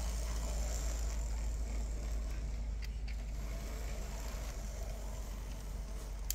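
Märklin Z scale model locomotive running steadily, its tiny electric motor whirring as it pulls a mixed freight train around the track, with a few faint clicks about three seconds in.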